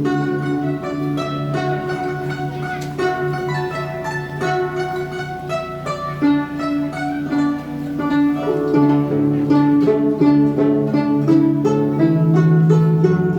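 Guzheng being played, a quick flow of plucked notes ringing over lower sustained tones.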